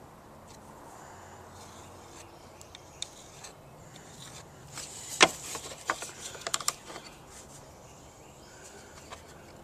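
A short run of sharp clicks and taps from a plastic corner-rounding template and pencil being handled on a plywood board, marking a rounded corner. It starts about five seconds in, the loudest tap first, and lasts about two seconds. Otherwise only a faint background.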